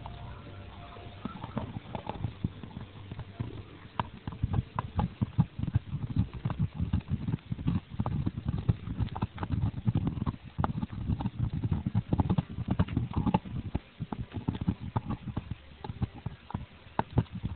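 A large black dog gnawing a big leg bone: teeth scraping and knocking on the bone in quick, irregular clicks and crunches that start about a second in.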